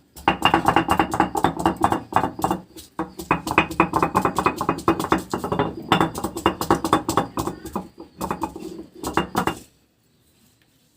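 Rapid metallic clatter of a metal utensil against a steel dish, in several quick runs with brief pauses, then stopping near the end.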